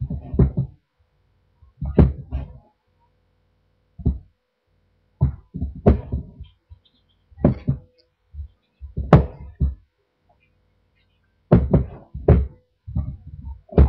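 Gloved hands kneading and pressing bath bomb mixture in a stainless steel bowl, making irregular dull thumps and knocks about every second or two as the mix is squeezed and the bowl is handled.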